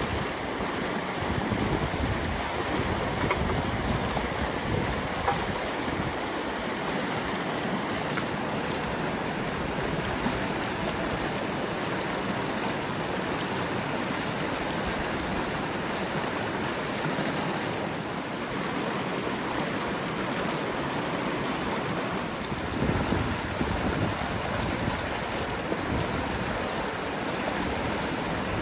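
Steady rush of a flowing river, with wind buffeting the microphone at times, most near the start and about three-quarters of the way through.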